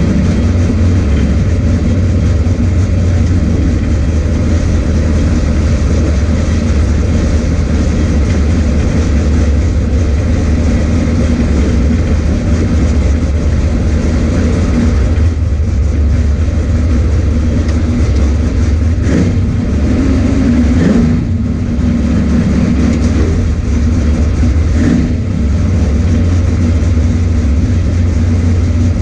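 A loud car engine running steadily, a deep low drone that holds much the same pitch throughout, with a few brief dips and small changes around the middle.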